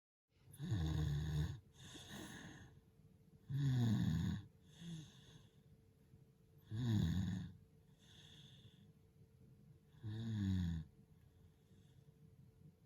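A sleeping person snoring lightly: four snores about three seconds apart, each followed by a softer breath out.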